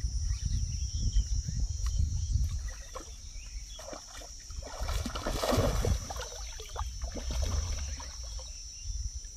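A hooked fish splashing and thrashing at the surface of shallow water, loudest about five to six seconds in. Wind rumbles on the microphone, strongest in the first two seconds.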